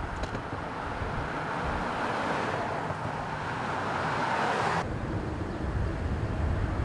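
Road traffic: tyre and engine noise of a passing car swelling as it approaches, then cut off abruptly near the middle. A low rumble follows.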